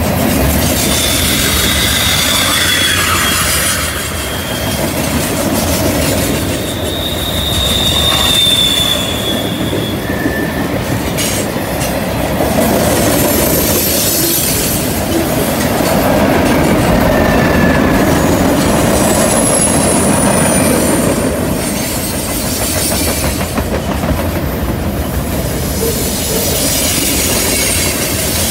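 Freight train of tank cars and boxcars rolling past on a curve: a steady rumble and clatter of wheels on rail. Several short, high-pitched wheel squeals come and go over it.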